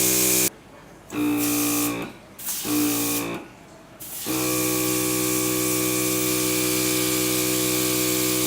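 RIBO HC23 mini airbrush compressor running with a steady hum and a hiss of air. It cuts out and restarts three times in quick succession, then runs on steadily from about four seconds in.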